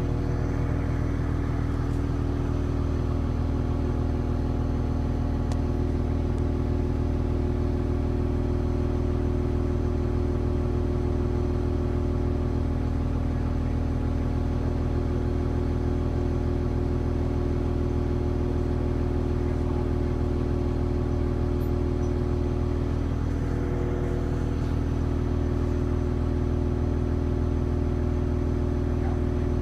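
Cummins QSL9 inline-six marine diesel engine running steadily at low idle, about 800 RPM, under a light load.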